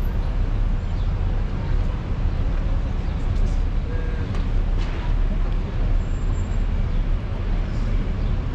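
Busy street ambience: a steady low rumble of traffic with indistinct voices of passers-by.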